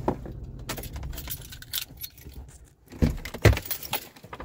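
Keys jangling and clicks from handling inside a pickup truck's cab, over the low steady hum of the parked truck's idling engine. The hum dips briefly, then two louder knocks come about three seconds in.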